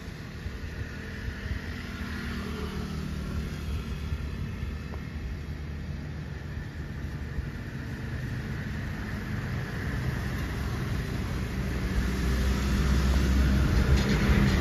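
Low engine rumble with a steady hum, growing louder over the last few seconds as of a motor vehicle drawing nearer.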